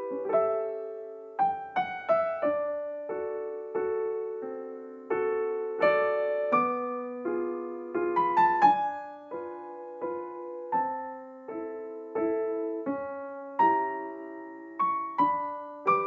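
Background piano music: a calm run of single notes and chords, each struck and fading before the next.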